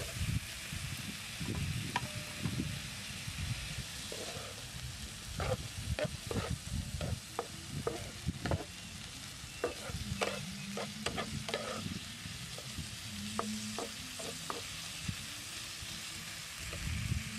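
Water lily stems and pork sizzling in a frying pan, with a wooden spatula scraping and clicking against the pan as they are stirred; the strokes come thickest in the middle.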